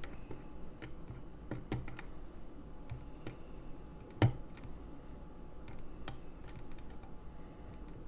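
Small, irregular clicks and taps of a lock pick working the pins of a pin-tumbler lock cylinder under tension, with one louder click about four seconds in.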